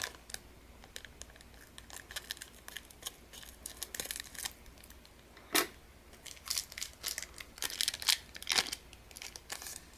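Foil trading-card pack wrapper being cut open with scissors and pulled apart by hand, crinkling in a run of short, sharp crackles that grow denser and louder in the second half.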